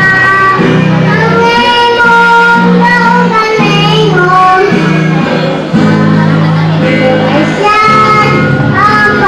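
A young girl singing a song into a microphone, her voice holding and bending notes, over a low instrumental accompaniment.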